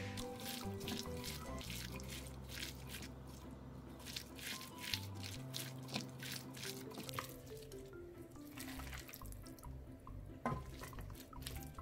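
Gloved hands squishing and tossing marinated pork with sliced vegetables in a glass bowl: a run of quick wet squelches and clicks, over light background music. A single sharper knock comes near the end.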